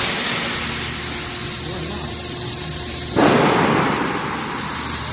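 Steady machinery hum with a high hiss. About three seconds in there is a sudden burst of rushing noise that fades within a second.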